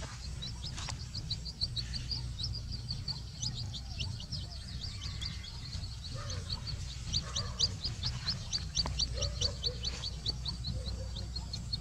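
Young chick peeping in a rapid string of short, high, falling peeps, about four or five a second, louder and denser in the second half: the repeated loud peeping typical of a distressed chick. A steady low rumble runs underneath.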